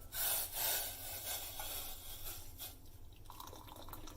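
Hot herbal tea being poured from the pan through a strainer into a glass: a splashing pour, loudest in the first second or so, then fainter.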